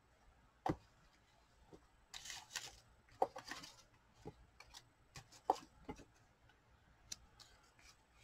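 Hands handling craft paper on a work table: paper rustling for a second or two, with several light taps and knocks as pieces are set down and pressed onto the page.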